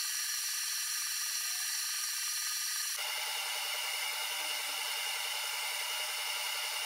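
Flux Beamo desktop CO2 laser engraver running as it engraves glass on its rotary add-on: a steady mechanical whir of its fan and motors in sped-up footage. The sound shifts abruptly about three seconds in and takes on a fast, even pulsing.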